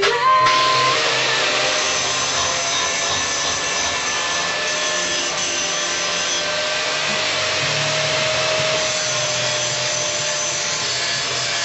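Music breaks off just after the start, giving way to the steady rushing noise of a machine or power tool running continuously without a break.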